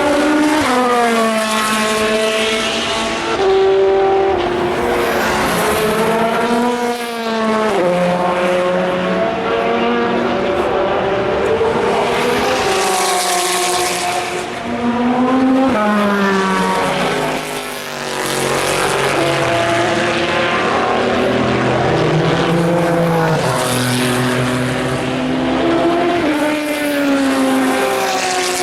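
Endurance race cars passing at speed one after another, their engine notes rising and falling in pitch as each goes by, with several overlapping and no break in the noise.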